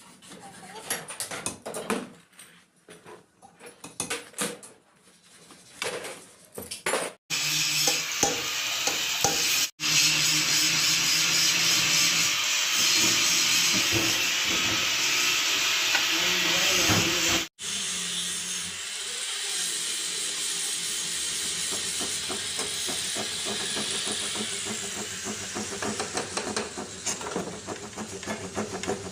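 Light clicks and taps of hand work on a cast-iron sewing machine. About seven seconds in, a loud, steady hiss takes over and runs on, with faint clinks under it.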